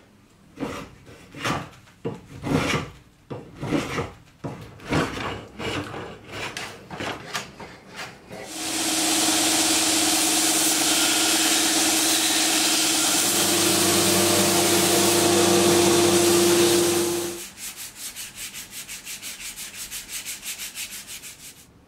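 A hand plane takes about a dozen separate shaving strokes off a wooden handle blank. A belt grinder then runs steadily while the wood is pressed against the belt for about nine seconds, its tone rising slightly midway. It ends with fast back-and-forth strokes of a sanding block on the wood.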